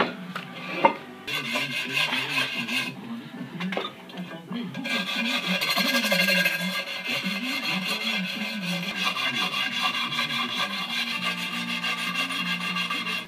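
Fast, steady rubbing and scrubbing on a bare aluminium motorcycle wheel rim, in a short spell early on and a longer continuous spell from about five seconds in. A sharp knock comes about a second in as the wheel is handled.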